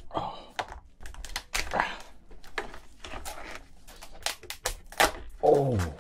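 Cooked lobster shell cracking and crunching in gloved hands as it is pried and squeezed apart: a rapid, uneven run of sharp snaps and crackles. Near the end a short, strained vocal grunt falling in pitch.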